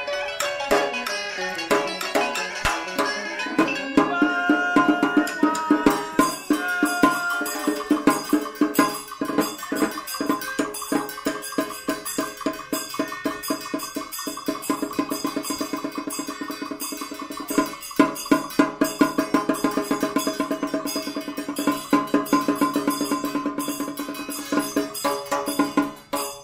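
Traditional Vietnamese ritual ensemble music: melodic instruments over wood-block and drum percussion. From about eight seconds in, a fast, even clicking beat runs under held notes.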